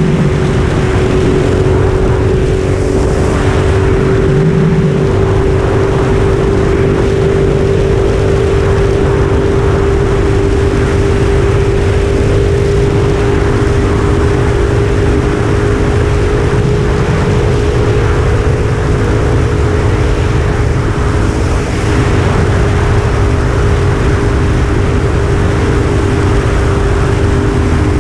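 Motorcycle engine running at a steady cruising pitch, with a constant rush of noise over it.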